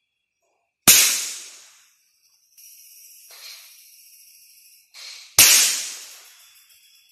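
Two rifle shots about four and a half seconds apart, each a sharp crack that dies away over about a second. Night insects trill steadily between them.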